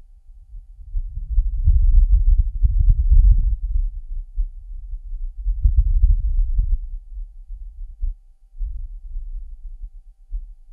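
Martian wind recorded by the Perseverance rover's microphone, filtered to remove the rover's own noise: a deep, low rumble of gusts that swells twice, the first and strongest gust early and a second about midway, then dies to weaker puffs.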